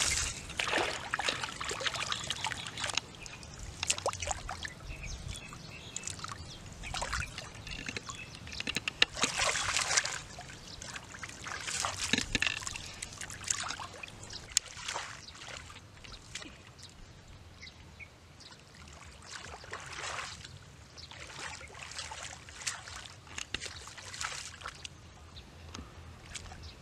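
Shallow muddy water splashing, sloshing and trickling in irregular bursts as hands grope along the bottom for fish and pull out clumps of water plants.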